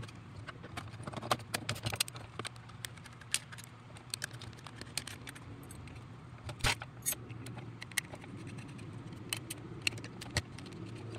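Small clicks, taps and scrapes of a screwdriver, screws and a metal bracket as a plastic junction box is unscrewed and taken apart, with a sharper click about six and a half seconds in. A low steady hum runs underneath.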